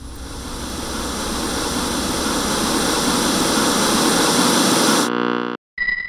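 TV-style static hiss, a sound effect, swelling louder for about five seconds. Then comes a short buzz that cuts off abruptly, followed by a bright chime that rings on near the end.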